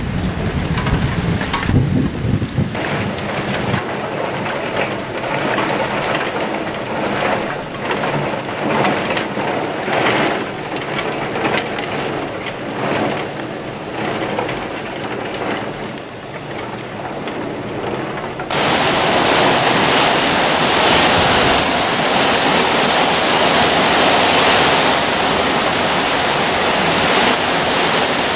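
Thunderstorm: a low rumble of thunder at the start, then gusty wind-driven rain beating in uneven surges. About two-thirds through, the sound switches abruptly to a steady downpour of heavy rain, louder than before.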